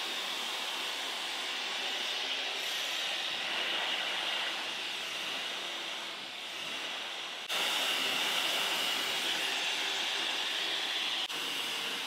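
Muttus M12X leafless hair dryer running steadily on its full-strength fan setting: a rushing blast of air with a high whine. It gets suddenly louder about two-thirds of the way in.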